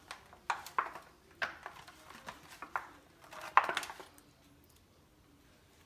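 Disposable aluminium foil roasting pan crinkling and clicking as it is gripped and shifted on the counter: a run of sharp crackles over about four seconds, the loudest near the end, then quiet.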